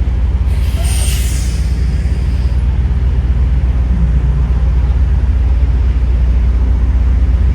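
Semi-truck diesel engine running with a steady low rumble. About half a second in, a hiss starts and lasts about two seconds.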